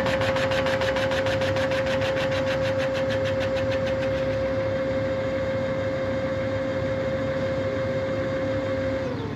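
CNC line-boring machine running, its boring bar cutting the main bearing bores of a Mopar 512 stroker block: a steady high whine over machine noise, with a fast flutter for the first few seconds. The whine stops just before the end.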